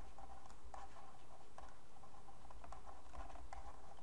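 Digital pen tapping and scratching on a writing surface as words are handwritten: a series of light, irregular ticks.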